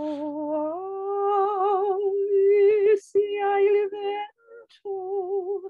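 A woman crooning a slow, wordless dirge: long held notes with wide vibrato. The pitch steps up about a second in, and there are short breaths near the three-second mark and again about a second later.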